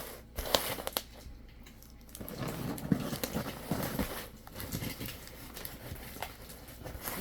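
Handling and opening a taped cardboard shipping box: scraping, rustling and a run of sharp clicks and taps as the tape is worked at.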